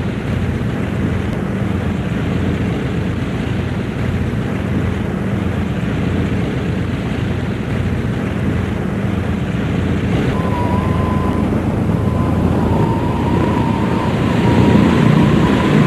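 Two radial piston engines of a P-2 Neptune patrol aircraft running steadily as it taxis. About ten seconds in, a thin high squeal of the brakes joins and carries on over the engines.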